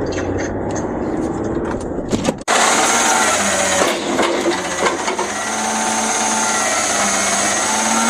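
Peterbilt garbage truck running with a steady mechanical whine. The sound changes abruptly, louder and brighter, about two and a half seconds in.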